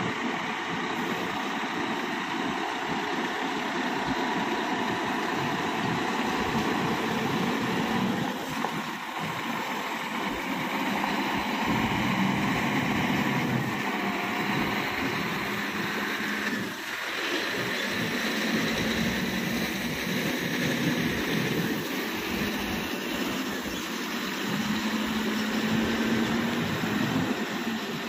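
Diesel engines of heavy Scania dump trucks running as the trucks drive past one after another, with a brief lull about two-thirds of the way through.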